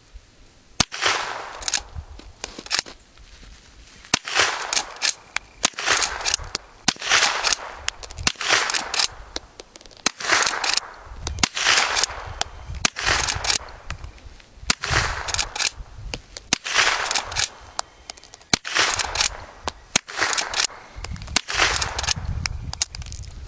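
Henry lever-action .22 carbine firing standard hollow-point .22 Long Rifle rounds in a rapid string of shots, roughly one a second, the lever worked between shots until the tube magazine is emptied. Each shot is sharp with a short echo after it.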